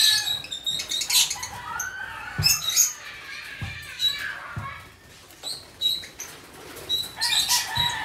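A flock of caged lovebirds chirping and squawking in many short, sharp calls, with wings flapping and a few dull thumps.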